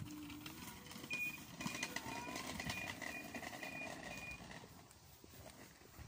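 Hoverkart's self-balancing hoverboard giving a run of short, evenly spaced high-pitched beeps, about two a second, for about three seconds as the boy rides it.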